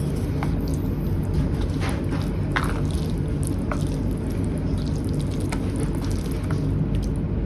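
Chopsticks stirring saucy instant noodles in a plastic tray: wet squishing with scattered small clicks against the tray, over a steady low hum.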